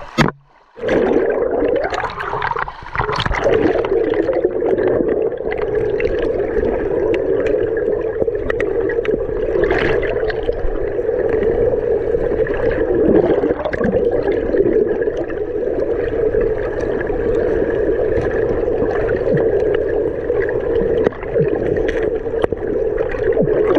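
Flowing river water heard through an underwater camera: a steady, muffled rush with occasional sharp knocks as river stones are shifted by hand. It starts about a second in, after a brief gap.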